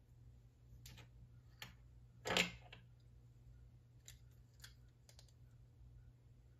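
LEGO plastic parts clicking and knocking as pieces of a mech are handled and snapped together: a few scattered faint clicks, with a louder clatter about two seconds in.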